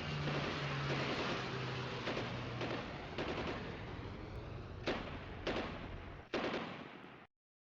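Airsoft guns firing: rapid shots over a steady noisy din, then three louder single shots spaced under a second apart near the end, before the sound cuts off suddenly.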